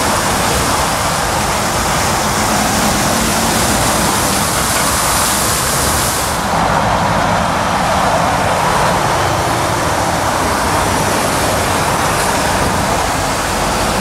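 Diesel lorry engines running as articulated trucks move slowly across the lorry park, over a steady rush of traffic noise: first a DAF tractor unit pulling a low-loader, then a Renault tractor unit with a tipper trailer. The sound changes abruptly about six and a half seconds in.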